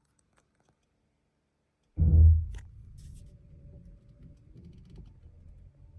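A sudden loud, low thump about two seconds in that dies away within half a second, then a steady low rumble inside a 2024 Toyota RAV4, with a few faint clicks.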